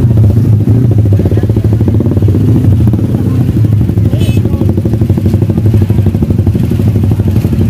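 A small engine running steadily at close range, its loud low hum pulsing evenly.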